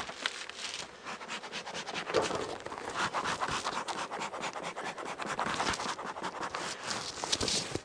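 Clear plastic sheet crinkling and crackling as it is peeled back off the wooden top bars of a beehive's frames, a dense run of small crackles.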